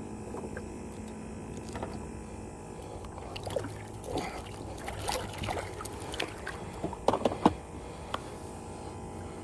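Scattered light knocks, clicks and water trickles on a fishing kayak while a just-landed redfish is unhooked, with a cluster of louder knocks about seven seconds in.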